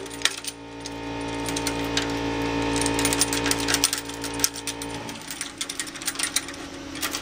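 Ratchet wrench clicking and chain links rattling as a chain is cranked tight around a car's exhaust pipe, over a steady hum that stops about five seconds in.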